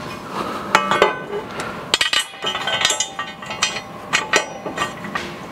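Steel trash knife clinking and knocking against the corn head's metal row unit as it is handled and set into place: a string of irregular sharp metallic clinks with short ringing.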